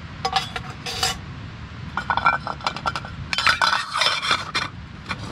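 Stainless steel camping pot and lid clinking and scraping as the lid is handled and set on the pot, in three short runs of metal-on-metal clinks with brief ringing.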